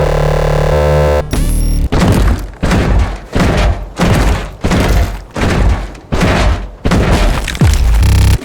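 Designed sci-fi mech sound effects: a buzzing, pitched mechanical whir for about the first second, then a steady series of heavy booming thuds, about one every two-thirds of a second, each ringing out briefly.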